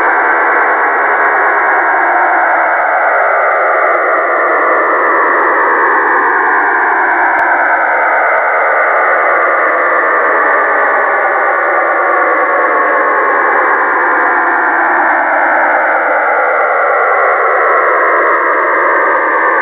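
Shortwave radio receiver in upper-sideband mode picking up a wide signal that fills the whole passband. It sounds like a steady rushing hiss, with slow downward sweeps drifting through it every few seconds. This is the receiver tuned a few kilohertz off the number station, onto another transmission.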